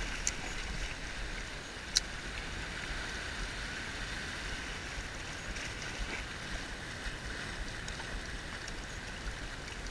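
Sea washing over a rock shelf with wind buffeting the microphone, a steady noise throughout, and one sharp click about two seconds in.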